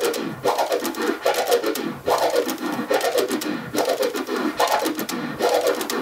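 Vinyl scratching on a turntable: a four-click orbit in its low-to-high variant, with the sample gliding up and down in pitch as the record is pushed forward and pulled back. The crossfader clicks chop each stroke into five short sounds, in an even repeating rhythm.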